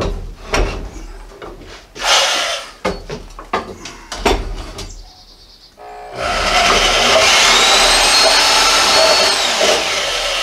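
Knocks and clatter as slotted steel angle is handled on a wooden deck. About six seconds in, an electric power saw starts and runs steadily, cutting the steel angle; its high motor whine drops near the end.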